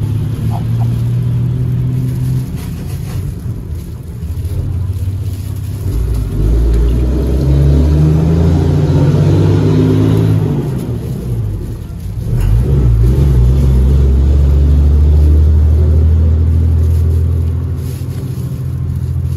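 Motor vehicle engines running close by, a low rumble that rises and falls in pitch. It swells twice, loudest in the second half.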